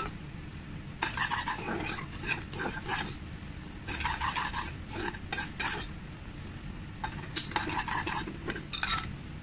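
Metal spoon stirring and scraping thick palm sugar caramel in a metal saucepan, in bouts of strokes with clinks against the pan, over the caramel bubbling as it thickens.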